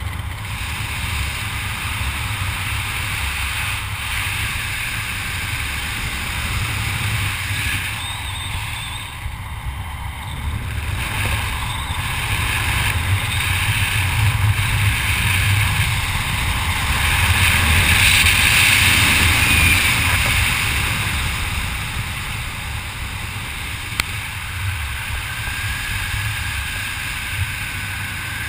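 Wind rushing and buffeting over the microphone of a camera worn by a skydiver descending under an open parachute. The noise is steady and swells louder for several seconds past the middle before easing again.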